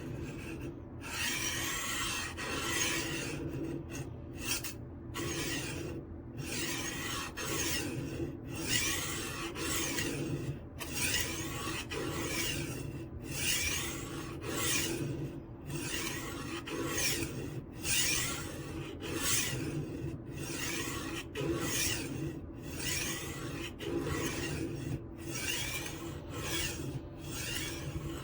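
HORL 3 Cruise rolling knife sharpener's sharpening disc being rolled back and forth along a chef's knife edge held on the magnetic angle block, grinding steel with a steady rasp. The strokes repeat about every second or two with brief pauses between them, grinding the second side of the bevel.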